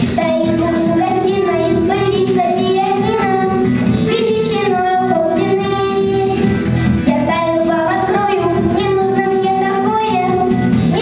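A young girl singing a song into a microphone over accompanying music with a steady beat.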